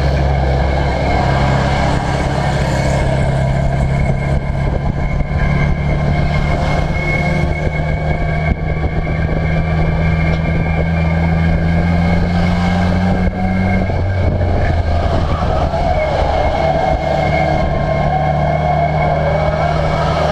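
Ministox stock car's engine running hard during a race, heard from inside the cockpit, a loud continuous engine note with the pitch dipping briefly about two-thirds of the way through before settling again.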